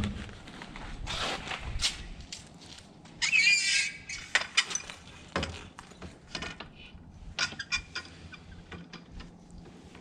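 Clicks, knocks and rustles of awning legs and gear being handled, with one brief wavering high squeal a little over three seconds in.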